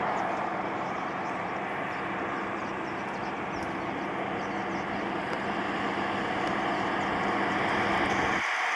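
Water rushing along a wadi's stream bed after rain, making a steady rushing noise. The deeper rumble under it cuts out abruptly near the end.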